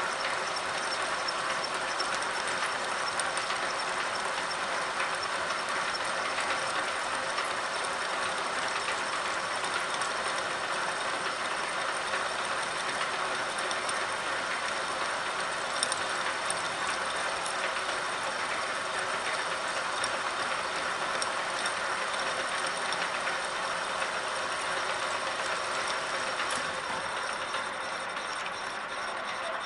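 Milling machine running, its end mill cutting a cam lobe on a blank turned by a dividing head geared to the table lead screw: a steady, even mechanical whir with high whining tones over it. One sharp click about halfway through.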